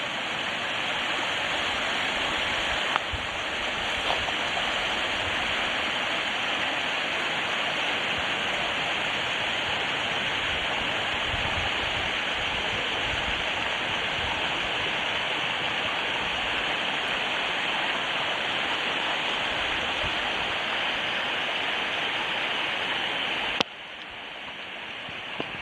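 Waterfall cascading, a steady rush of falling water. Near the end it drops suddenly to a quieter level.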